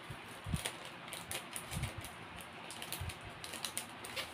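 Paper and tissue paper crackling and rustling in quick, irregular little clicks, with a few soft thumps, as hands dig through a packed cardboard box and pull out a thin paper item.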